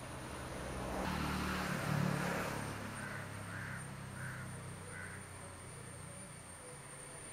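A motor vehicle passes, its rumble swelling about a second in and then fading. A crow caws five or six times at a steady pace.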